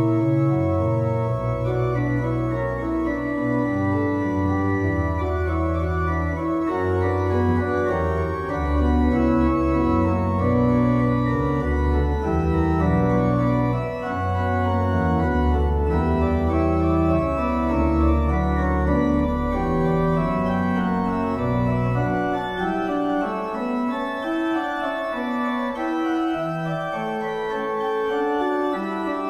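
Pipe organ playing a many-voiced piece, with sustained deep bass notes under moving upper lines. The deep bass stops about 22 seconds in, and the higher lines carry on alone.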